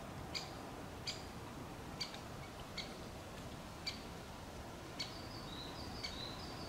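A small bird calling with short, sharp notes about once a second, with a few quick chirps near the end, over a steady rustle of leaves in the wind.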